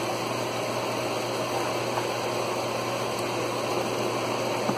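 Vent fan of the microwave above the stove running steadily, a constant hiss with a low hum, drawing off the cooking smoke.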